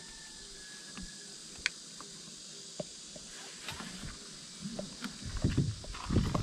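Locking tie-down strap being handled over a kayak on a car roof rack: a few small clicks of the strap's buckle, then rustling and scraping as the strap is pulled up and over the hull, growing busier near the end.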